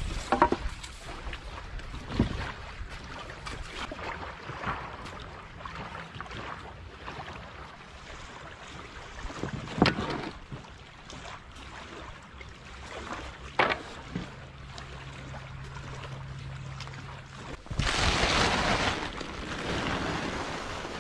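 Old wooden boards knocking now and then as they are handled in an inflatable boat, over a steady background of wind and water lapping at the shore. A louder rush of noise comes near the end.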